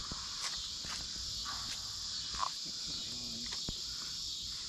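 Steady, high-pitched chorus of insects chirring, with a few light clicks and taps scattered through it.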